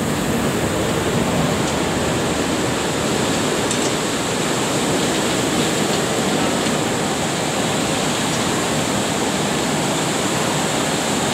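Steady, even noise of tea-processing machinery running, with no distinct beat or strokes.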